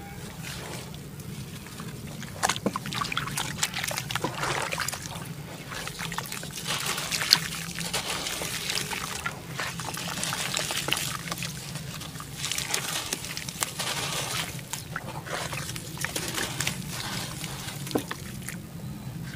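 Soaked red dirt blocks crushed and crumbled by hand in a basin of muddy water: wet crunching and squishing, with splashes and trickling as crumbs and water drop back in.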